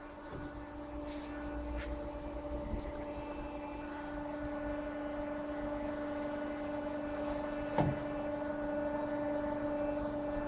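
KASTO HBA 420 AU automatic horizontal band saw running, a steady machine hum with a few fixed tones that grows slightly louder. A short knock comes about eight seconds in.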